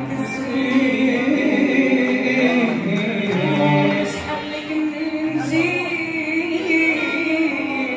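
Unaccompanied singing of a Lebanese zajal verse, several voices carrying a long, drawn-out melodic line together.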